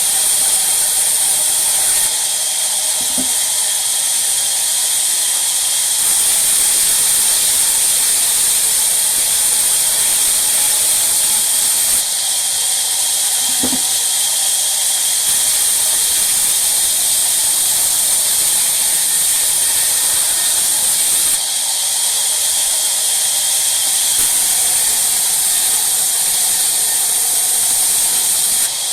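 Sawmill saw running through wood, a steady loud high-pitched hiss whose level and tone change abruptly several times, with a faint knock about three seconds in and again near the middle.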